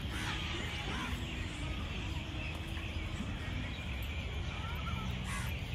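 Steady outdoor background noise with a low rumble, and a few faint high chirps in the second half.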